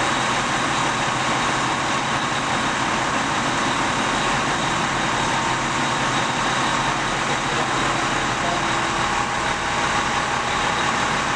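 Fire engine running steadily, a continuous even engine and road noise with no siren or horn.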